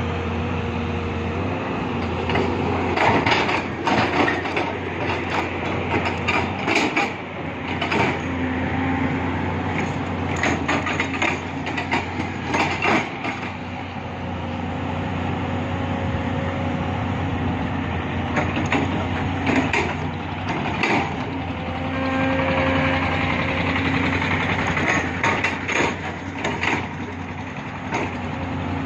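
SANY SY220 long-reach hydraulic excavator's diesel engine running under working load, a steady drone whose tone steps up and down as the hydraulics are worked. Short knocks and clatters come at intervals through it.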